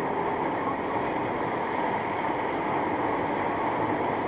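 Steady road and wind noise of a car cruising at highway speed, heard from inside the cabin through a dashcam microphone.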